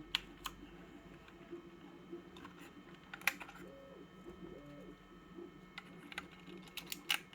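A few scattered sharp clicks from a SADES mechanical gaming keypad being handled, its removable keycaps pulled off and fitted back.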